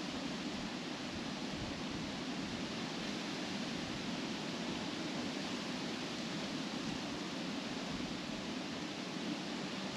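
Wind blowing through trees, leaves rustling in a steady, even hiss with no distinct gusts.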